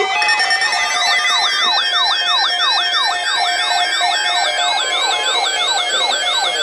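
Electronic siren in a fast yelp, its pitch sweeping up and down about three times a second, with other siren tones layered over it.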